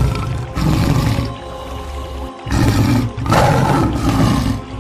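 Male lion roaring in a few loud, separate bursts over background music.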